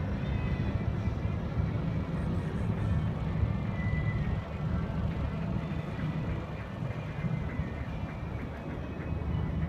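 Steady low rumble aboard a yakatabune pleasure boat under way: the boat's engine and the rush of wind and water.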